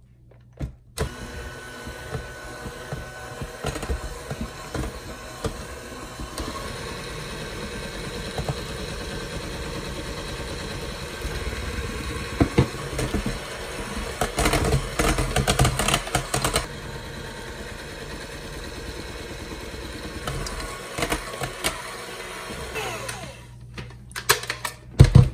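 Electric hand mixer running at slow to medium speed, its metal beaters whipping chilled cream in a stainless steel bowl; it starts about a second in, gets louder for a couple of seconds past the middle, and stops a couple of seconds before the end. A few loud knocks follow near the end.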